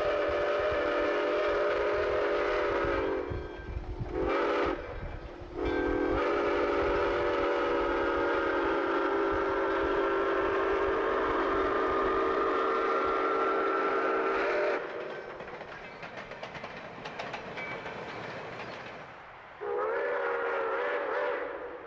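Steam whistle of Soo Line 2719, a 4-6-2 Pacific steam locomotive, blowing a chord of several notes: a long blast ending about three seconds in, a short blast, then a long blast of about nine seconds, over the low rumble of the passing engine. Near the end a further blast of about two seconds sounds.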